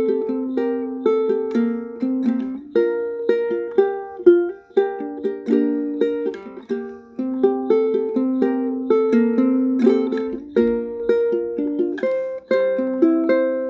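Ukulele played solo: a plucked melody with chords, several notes a second, each note ringing and fading.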